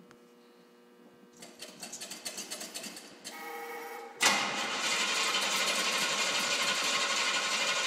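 Classic Pontiac GTO V8 being started: the starter cranks in rapid pulses for about two seconds and the engine catches. About four seconds in, it jumps sharply to a loud, steady run.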